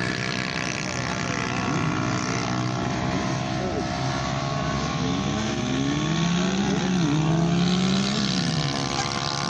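Several motorcycle engines running at once over a steady drone. One or more of them revs repeatedly, the pitch rising and falling in long sweeps, with the strongest revving over the second half.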